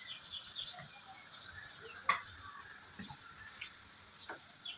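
A few sparse, light knocks and clicks of a wooden rolling pin working chapati dough on a wooden rolling board. Faint birds chirp in the background.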